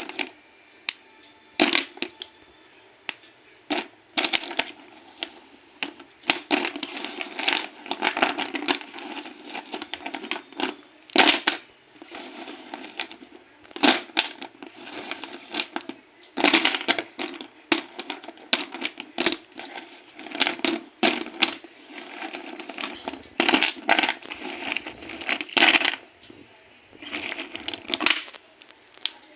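Dry clay breaking and crumbling: crisp crackling in repeated bouts of a second or two, with single sharp snaps between them.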